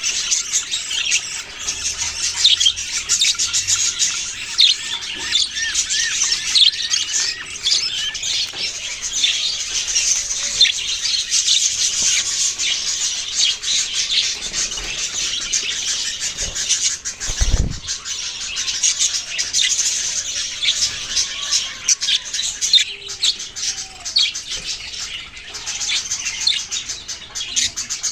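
A flock of budgerigars chirping and chattering, many high calls overlapping without a break, with a brief low thud about two-thirds of the way through.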